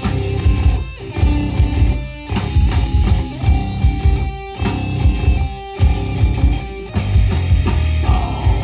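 Live heavy metal band playing an instrumental passage: distorted electric guitars holding notes over pounding drums, with short stops in the playing about every second.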